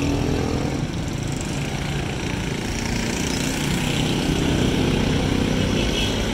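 A small engine running steadily, a low drone with street noise around it, growing a little louder about four seconds in.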